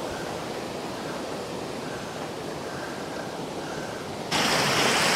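Rushing mountain creek, a steady hiss of fast water. About four seconds in it jumps abruptly louder and brighter, the rush of the cascade heard close up.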